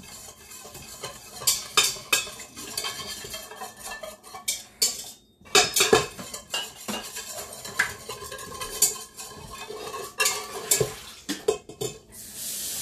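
Wire whisk beating a thin soy-sauce-and-honey sauce in a stainless steel pressure-cooker pot: quick, irregular metallic clinks and scrapes of the wires against the pot, with a short pause about five seconds in.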